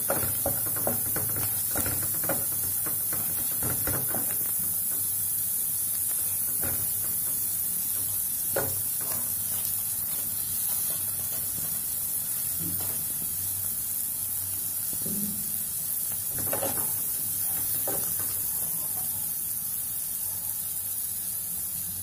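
Chopped vegetables and spices sizzling in oil in a non-stick frying pan while a spatula stirs and scrapes them. There are quick strokes in the first few seconds, then only now and then.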